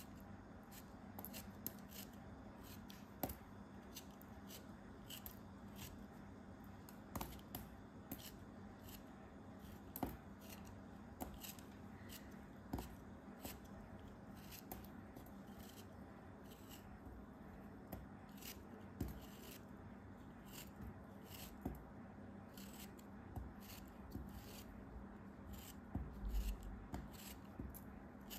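Snap-off craft knife blade shaving slices off a crumbly, sandy moulded block: soft, crisp scrapes and crunches, a few each second, with a few sharper ones, over a faint steady hum.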